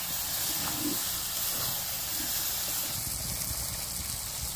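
Chicken pieces frying in masala in a steel kadhai over a wood fire, giving a steady hiss.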